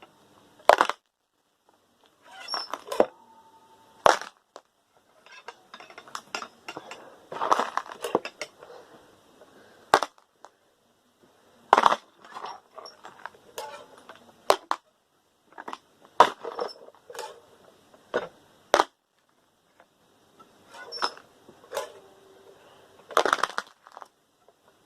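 Loose metal screws clattering and clinking as they are sorted, in sharp irregular clicks and short rattling bursts every second or two.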